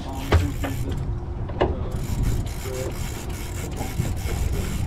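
Heavy conventional fishing reel being cranked under load, its gears grinding and clicking, over a steady low rumble.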